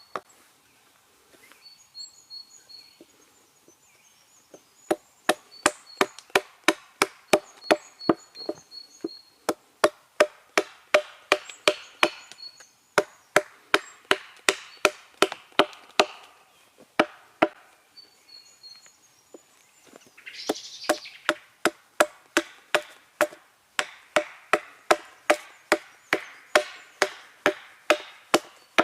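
Hatchet chopping a small piece of wild cherry into a spoon blank: a few scattered strikes, then quick runs of even blows at about three a second, broken by short pauses. Birds chirp in the background.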